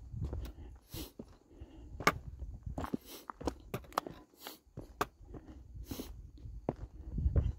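Footsteps crunching on a rocky dirt trail: irregular scuffs and clicks, over a low, uneven rumble of wind on the microphone.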